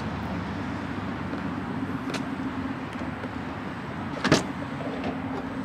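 Straight-piped, supercharged 2004 Mustang GT's 4.6-litre V8 idling steadily, with a sharp click about four seconds in and a fainter one about two seconds in.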